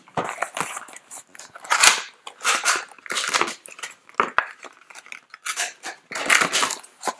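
Clear plastic blister packaging crinkling and crackling in irregular bursts as it is handled and pulled open.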